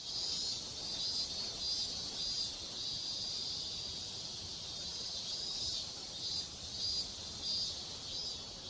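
Insects chirping in a high-pitched chorus that pulses in regular waves, over a low steady background hiss.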